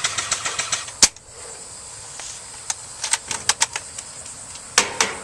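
Airsoft guns firing: a rapid string of shots, about seven a second, in the first second, a sharp single shot just after, then scattered single shots and short strings later on.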